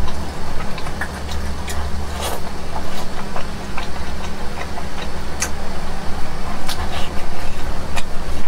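Close-miked chewing of sticky braised beef tendon: wet smacks and clicks at irregular moments over a steady low hum.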